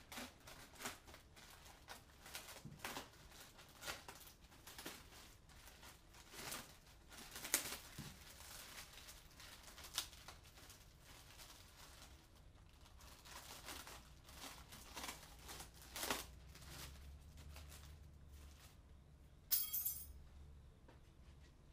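Plastic bags rustling and crinkling, with scattered light clicks and knocks as things are handled, and a short sharp rasp near the end, the loudest sound.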